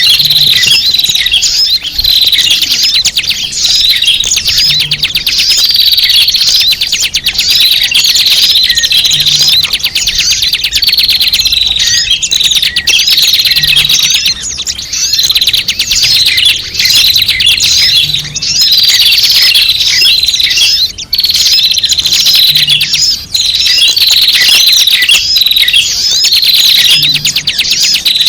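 Many small birds chattering with dense, overlapping high chirps and short trills, loud and without pause. It is a bird-catchers' lure call (suara pikat) of a noisy small-bird flock.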